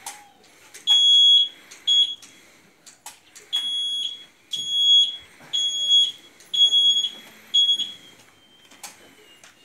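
Electric mobility scooter's reverse warning beeper sounding a high, steady beep about once a second, seven or eight times with a short pause or two, while the scooter backs up.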